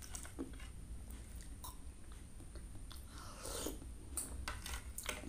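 Close-up eating sounds: a metal spoon clicking and scraping against a ceramic plate while the coconut-milk kolak broth is scooped up, with chewing and a longer slurp from the spoon about three and a half seconds in.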